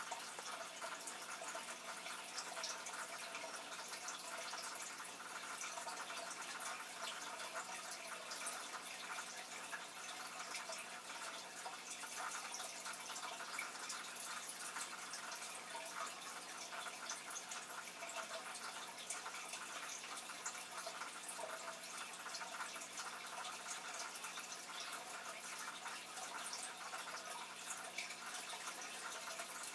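Aquarium water trickling steadily, with many fine crackles and drip-like ticks and a faint low hum underneath.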